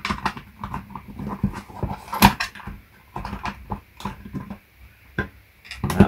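Clicks, knocks and rattles of an opened Dell laptop AC adapter's plastic case and its cables being unplugged and turned over on a workbench, with a sharp knock about two seconds in and another near the end.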